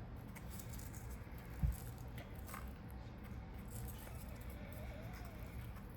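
Quiet handling noise of small craft pieces, with a few faint clicks and one dull thump about a second and a half in.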